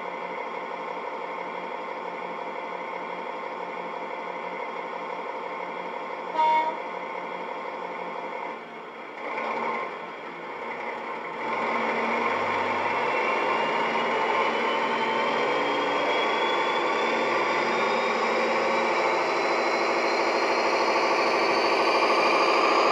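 Model Class 41 Warship diesel sound from a DCC sound decoder, played through the loco's small onboard speaker. The engine idles steadily, a short horn blast sounds about six and a half seconds in, and from about eleven seconds the engine powers up louder with a whine that rises steadily in pitch as the loco pulls away.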